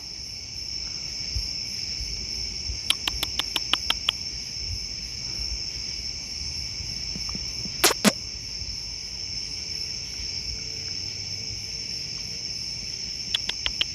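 Crickets chirring steadily in a continuous high drone. A quick run of about eight sharp ticks comes about three seconds in, another short run near the end, and one brief sharp sound about halfway through.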